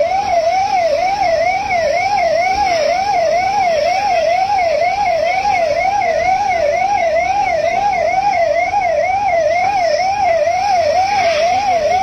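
Emergency vehicle siren wailing in a fast warble, rising and falling about twice a second, over a steady hiss.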